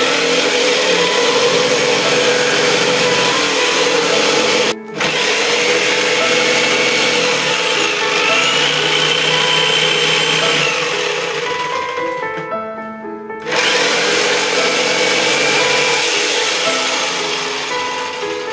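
A high-speed handheld power tool running loud under load, its motor whine climbing as it spins up and dropping as it winds down. It does this in three runs, broken by a brief stop about five seconds in and a longer one around the two-thirds mark. Background music plays underneath.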